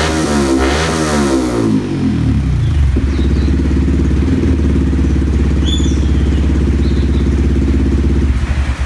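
Yamaha WR 155 single-cylinder engine running through a Smoke Muffler Evo2 aftermarket exhaust. It is revved twice, drops back, and settles into a steady idle after about two seconds. The engine stops near the end.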